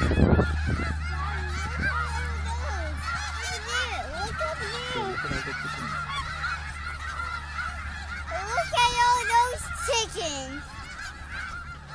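A large flock of snow geese calling continuously, many overlapping honks over a steady low hum.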